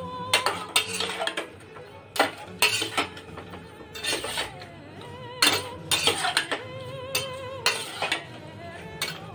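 Spatula knocking and scraping against a stainless-steel pot while raw fish is turned in spices, a sharp clink every second or so, over background music.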